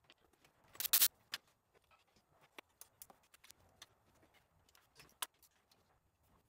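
Hand tools clicking and clinking against metal engine parts, scattered irregular ticks with one louder clatter about a second in: a wrench being worked on fittings while taking apart the intake side of an engine.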